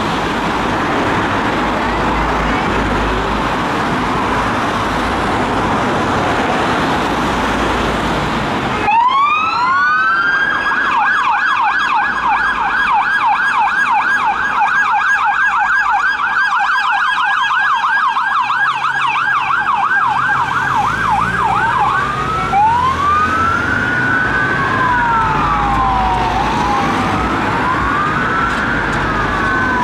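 Steady road and traffic noise, then after about nine seconds a police car siren winds up and goes into a fast yelp, about three cycles a second. After about twenty seconds it changes to a slow rising-and-falling wail, and near the end two sirens wail out of step, from the pair of Peugeot 308 SW police incident response cars responding on blue lights.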